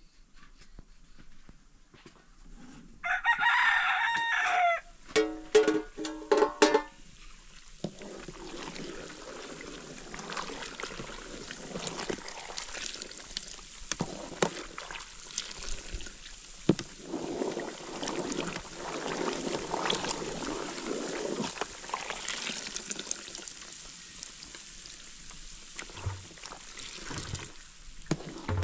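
A rooster crows once, loudly, about three seconds in, followed by a run of short clucking calls. After that comes a steady hiss with scattered clicks.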